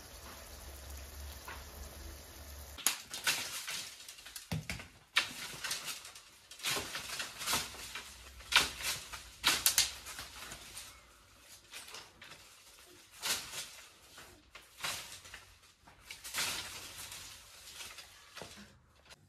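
A long pole poking and knocking among tree branches, with leaves rustling and twigs clattering in irregular bursts, some sharp and loud. A steady faint hiss from a pot cooking over embers comes first, for about three seconds.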